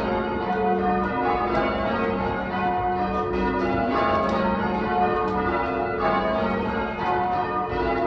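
Ring of eight church bells (14 cwt tenor, tuned to F#, mostly cast by Taylor's) ringing call changes. The bells strike one after another in an even, unbroken rhythm, each note ringing on over the next.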